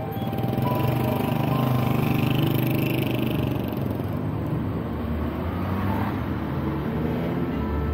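Steady road-traffic noise from inside a stream of moving cars: engines and tyres of the surrounding vehicles and the taxi itself, picked up from the car's roof.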